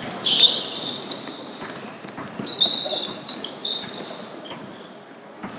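Basketball being played on a hardwood gym floor: the ball bouncing as it is dribbled, and sneakers giving short high squeaks on the court, in an echoing hall.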